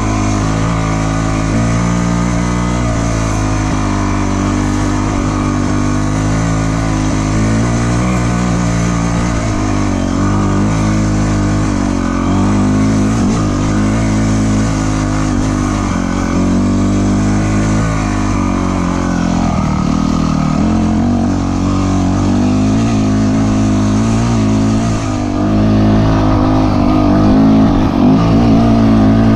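Dirt bike engine running under way, its pitch rising and falling with the throttle. It gets a little louder near the end.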